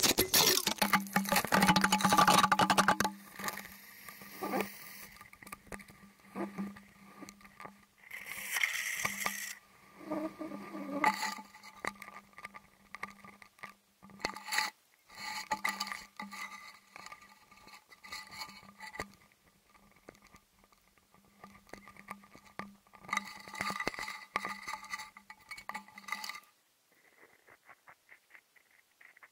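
Camera handling noise: a loud, rough rustle for the first three seconds, then scattered taps, knocks and scrapes over a faint steady hum, picked up by a camera lowered beneath lake ice. The hum stops near the end.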